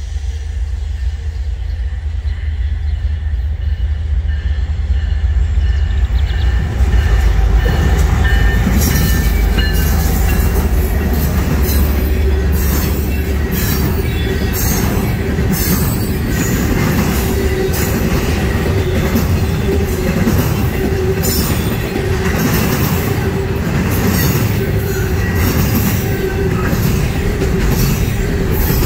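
Norfolk Southern double-stack container freight train approaching and passing close by: the locomotives' heavy diesel rumble grows over the first several seconds, then the loaded well cars roll past with wheels clicking over the rail joints and a steady wheel squeal.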